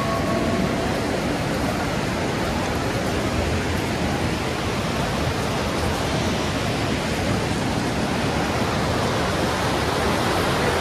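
Alaknanda river's fast, rocky white water rushing: a steady, unbroken noise. A bell's ringing tone fades out in the first second.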